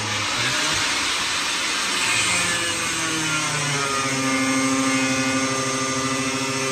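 Corded angle grinder cutting metal at a bus window frame, running loudly throughout. Its pitch wanders in the first few seconds as the disc bites, then holds steady from about four seconds in.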